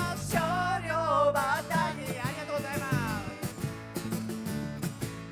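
Live band playing an instrumental passage: strummed acoustic guitar, electric bass and drums, with a high, wavering wordless vocal line over the first three seconds.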